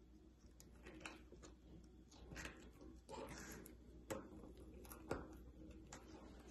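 Faint handling noise of small parts being fitted together: a few soft clicks and brief rustles as a thermocouple extension-wire connector is worked into a ceramic terminal block.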